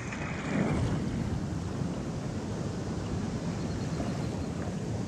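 Steady rush of river water pouring over a low dam, mixed with wind noise on the microphone.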